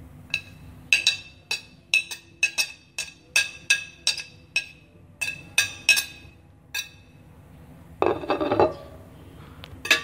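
Ceramic plate knocked repeatedly against the rim of a ceramic bowl to shake chopped parsley off it: about fifteen sharp, ringing clinks over the first seven seconds. A brief scrape follows about eight seconds in.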